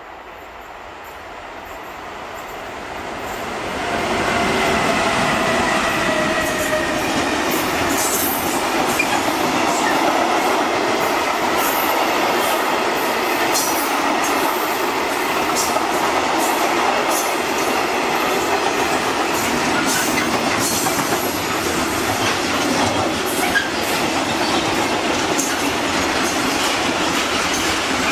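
A freight train hauled by two DB Class 185 electric locomotives approaches, growing louder over the first four seconds. A long string of freight wagons then rolls past with a steady rumble of wheels on rail and frequent sharp clicks.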